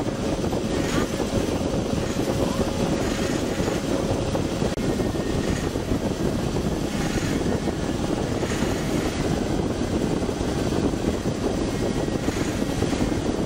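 A river express boat's engine running at cruising speed, a steady unbroken drone heard from inside the passenger cabin.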